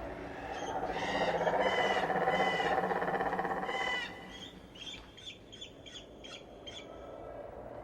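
Wild animal calls: a loud, harsh call lasting about four seconds, then a quicker series of short, high chirping notes at about three a second.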